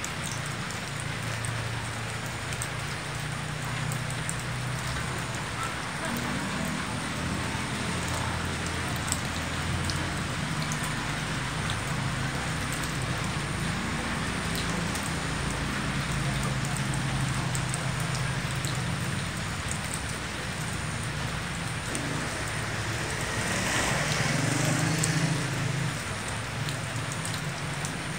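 Steady light drizzle falling on roofs and surfaces, an even hiss of rain. A low hum runs underneath and swells briefly about four seconds before the end.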